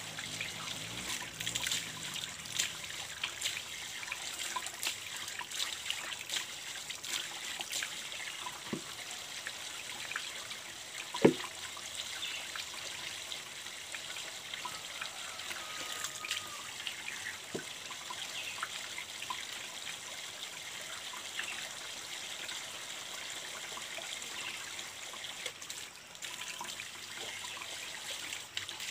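Water trickling steadily from a PVC pipe, with small splashes as baby diapers are rinsed and wrung in plastic buckets. A single sharp knock about eleven seconds in.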